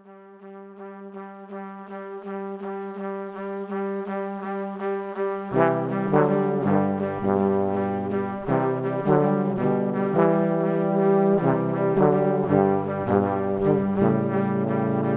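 Instrumental intro music: one held note swells over a quick steady pulse, then bass notes and changing chords come in about five and a half seconds in.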